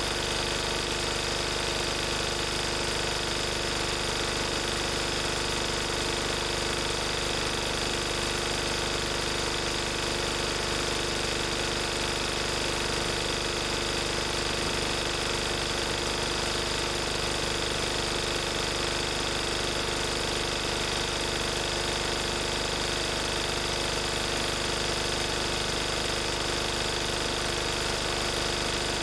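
1994 Lister Petter AD1 single-cylinder air-cooled diesel engine driving a 5 kVA generator, running steadily at its constant governed speed of 3000 rpm.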